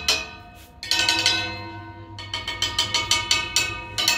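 Wooden drumsticks tapping the vertical bars of a rusty metal railing, each hit ringing with clear metallic tones. There are a couple of strikes at first, a quick flurry about a second in, then a steady run of several taps a second.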